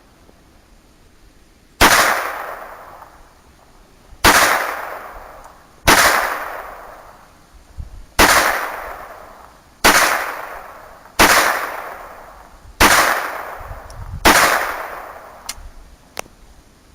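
Phoenix Arms .22 pistol fired eight times at a steady pace, a shot every one and a half to two and a half seconds, each crack echoing away for over a second. Two light clicks follow near the end.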